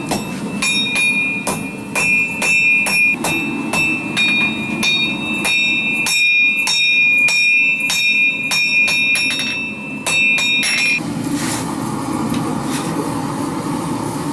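Hand hammer striking hot 52100 chrome ball-bearing steel on an anvil, about two to three blows a second, each blow leaving a bright ringing tone as the tang of a small knife is forged. The hammering stops about eleven seconds in, leaving the steady rushing noise of the running forge.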